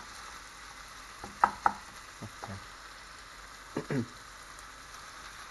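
Crumbled sausage meat sizzling steadily in a frying pan, with a wooden spatula knocking and scraping against the pan a few times as the meat is broken up and stirred.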